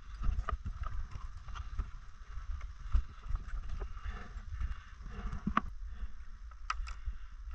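Irregular knocks and clicks, a few a second and uneven in spacing, over a constant low rumble on the microphone.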